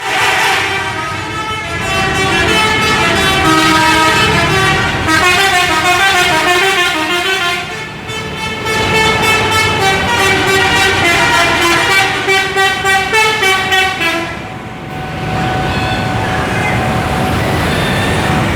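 Indonesian 'telolet' multi-tone bus horn playing a tune of stepped notes over bus engine and traffic noise, with a quick run of stuttered notes near the end of the tune. The horn stops about fifteen seconds in, leaving engine and road noise.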